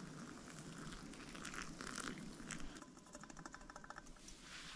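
Hot water poured in a thin stream from a camp cooking pot into a pour-over coffee dripper, a faint pattering trickle, with a quick run of small ticks about three seconds in.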